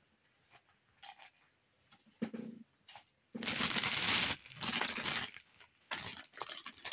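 Packaging rustling and crinkling as items are dug out of an opened parcel box. It starts loud and sudden about halfway in and comes in several rustling bursts, after a few soft clicks of handling.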